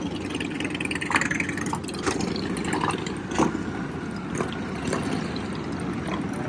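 Several motorcycle engines rumbling steadily at low speed, a deep continuous engine drone.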